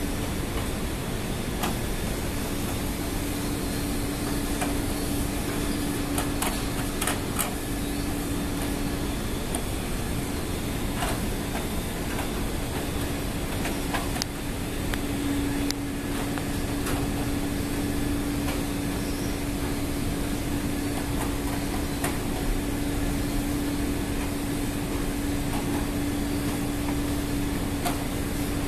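Steady machinery drone with a constant hum, which weakens for a few seconds midway, and a few faint clicks.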